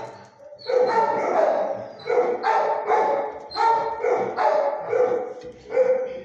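Shelter dogs barking repeatedly, about five loud bouts of barks, each lasting under a second.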